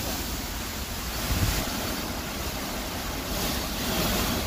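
Heavy rain pouring down in a storm with gusting wind, the gusts buffeting the microphone. The wind swells about one and a half seconds in and again near the end.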